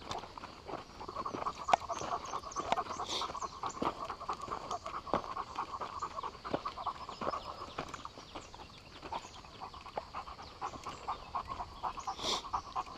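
Rapid panting breath close to the microphone, with scattered small clicks and crunches.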